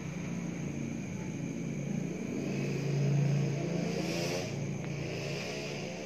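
Engine of a passing motor vehicle. It swells to its loudest about halfway through and then fades, its pitch shifting.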